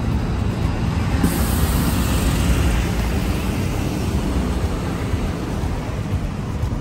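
City bus driving by on a street: a steady low rumble of engine and tyres, with a hiss coming in about a second in.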